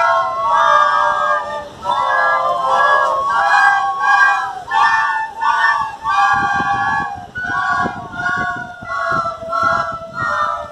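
A group of children playing plastic soprano recorders together, a simple tune of short held notes, slightly uneven between the players. Low thumps come in under the playing from about six seconds in.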